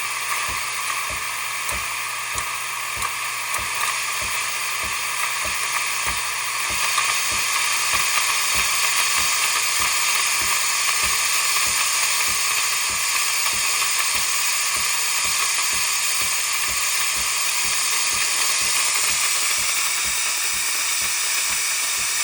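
Gevi espresso machine's steam wand emitting steam in a steady hiss, with a quick run of short low pulses underneath; the hiss grows a little louder about seven seconds in. The steam now comes because the machine was warmed up in standby before being switched to steam.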